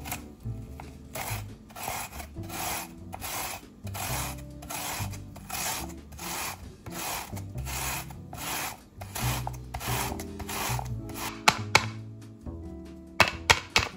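Radish being grated by hand on a plastic grater: a steady rhythm of rasping strokes, a few a second. Near the end come several sharp taps, louder than the grating.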